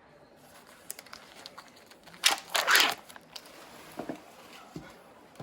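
Thin plastic food wrapper crinkling and tearing as it is peeled. There is a louder burst of crinkling about two seconds in, with a few light clicks and taps around it.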